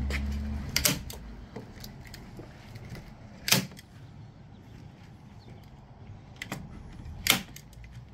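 Hand staple gun firing staples through vinyl into the wooden subwoofer box: three sharp clacks a few seconds apart, the second and third loudest, with a softer click just before the last.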